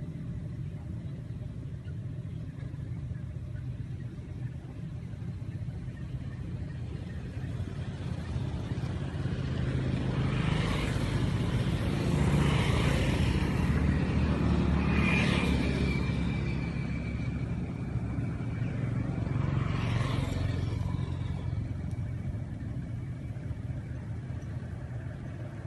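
Low rumble of a motor vehicle running, swelling to its loudest about halfway through and then fading, with a brief steady high tone near the middle.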